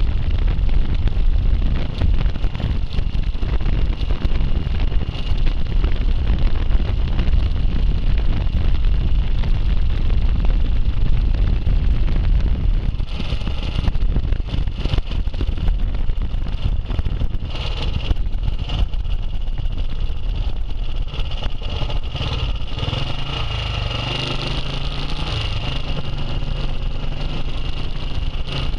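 Vintage motorcycle engine running on the move, with wind rumbling on the microphone. In the last several seconds the wind eases and the engine's steady low note comes through more plainly.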